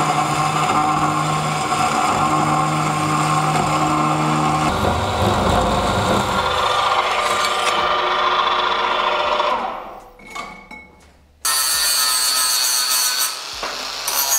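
A cold circular saw (metal cold saw) running and cutting through steel tube, its sound turning heavier and rougher for a couple of seconds mid-cut, then winding down with a falling whine. About eleven seconds in, an angle grinder starts abruptly and grinds a chamfer on the edges of the steel tube.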